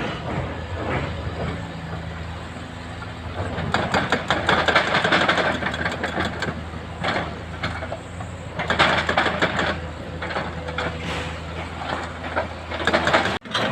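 Heavy excavator's diesel engine running steadily, with several loud bursts of crunching, crackling rock noise from the machine working the rock.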